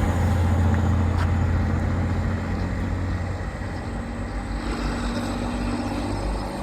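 A train at the station running with a steady low rumble that slowly fades.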